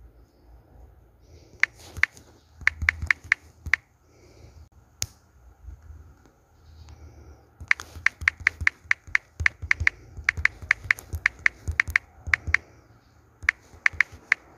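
Sharp, bright clicks coming in quick bursts of several a second, with pauses between the bursts, like typing on keys, over a low steady hum.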